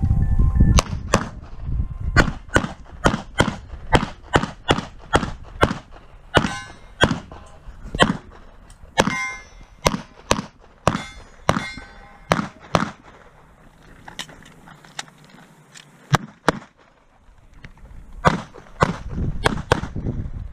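Pistol fired in rapid strings during a USPSA practical-shooting stage. Sharp shots come mostly in quick pairs, with short pauses between groups, a lull about two-thirds through, and a final string near the end.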